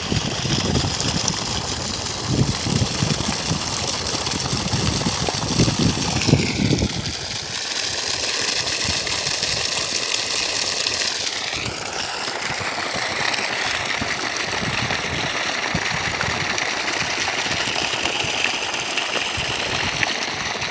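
Water gushing from a borewell discharge pipe and splashing onto muddy ground in a steady rush, softer for several seconds in the middle.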